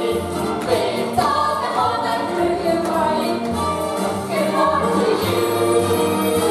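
A musical-theatre chorus of voices singing together over instrumental accompaniment.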